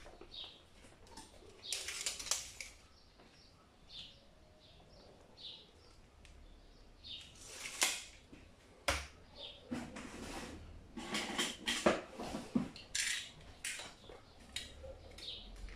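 Thin heat-shrink plastic film rustling and crinkling as a sheet is handled, measured and cut with a blade, with a few sharp clicks and taps along the way.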